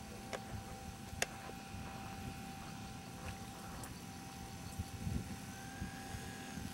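Electric motor and propeller of a HobbyZone Super Cub RC float plane taxiing on the water at low throttle: a thin steady whine over low wind rumble. A little past five seconds in, the whine shifts to a higher pitch.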